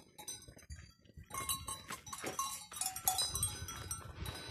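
Cowbells on a herd of alpine cattle clanking irregularly, starting about a second in, each clank leaving a thin high ringing.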